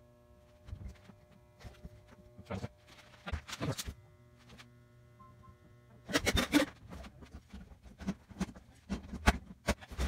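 Knocks and rattles of a gutted sheet-metal microwave cabinet being handled and turned around, growing louder and busier from about six seconds in, over a faint steady hum.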